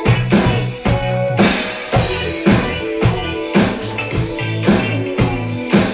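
Electronic drum kit played along to a pop song's backing track: a steady beat of kick and snare hits about two a second over a pitched bass line.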